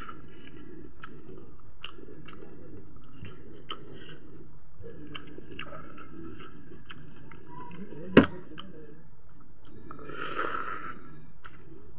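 A person chewing a mouthful of chicken and rice close up, with many small wet mouth clicks and smacks. One sharp click about eight seconds in is the loudest sound, and a short noisy burst follows about ten seconds in.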